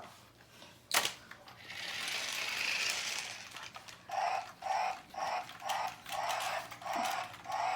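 Toy truck working: a sharp click, then a whirring hiss, then a repeating buzzing pulse about twice a second.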